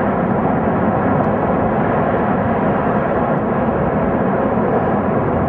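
A ruptured gas pipeline burning in a huge fire, a steady, loud rushing noise that does not let up.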